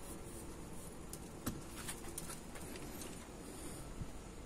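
Quiet handling noise: a few light clicks and taps, the loudest about a second and a half in, as ground coffee is tipped from a stainless-steel grinder cup into a hand and the cup is set down on a wooden table.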